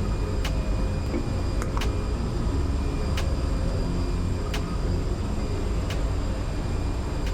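Steady low drone of running ship's engine-room machinery, with a handful of short sharp clicks from small metal and plastic parts of a magnetic contactor being handled.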